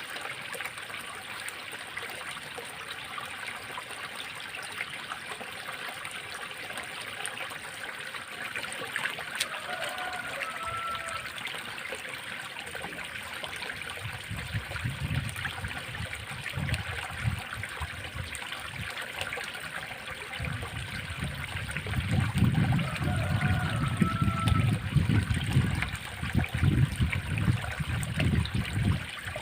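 Water trickling steadily in a small roadside drainage ditch. From about halfway through, irregular low rumbles and thumps grow louder over it, and two faint short whistled calls come in, one about a third of the way through and one near the end.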